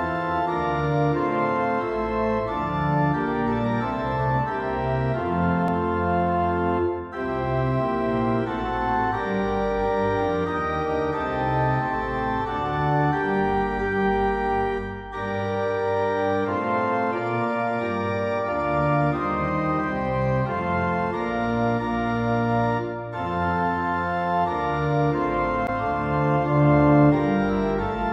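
Slow background music on organ: sustained chords that change every second or so, with brief pauses between phrases about every eight seconds.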